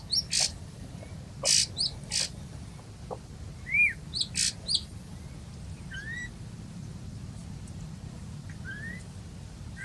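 Small birds chirping: scattered short chirps and a few brief arched whistles, over a faint steady low background hiss.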